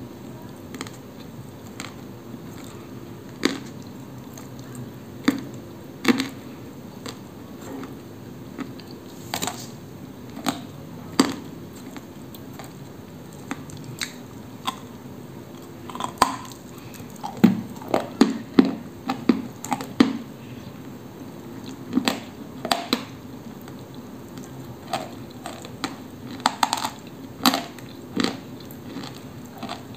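Dry Koksol eating clay being bitten and chewed close to the microphone: irregular crisp crunches with short gaps between them, coming thickest about halfway through.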